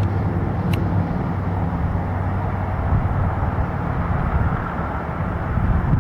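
Steady low rumble of jet engines at an airport, with one sharp click a little under a second in.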